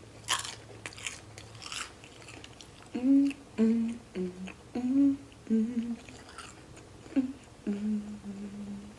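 Chewing with a few crunchy bites in the first two seconds, then a person humming a short tune of held notes with her mouth closed while eating.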